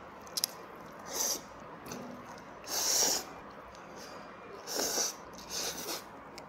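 A person slurping black-bean-sauce noodles (jjajangmyeon) off chopsticks: four slurps, the loudest and longest about three seconds in. A couple of faint clicks come near the start.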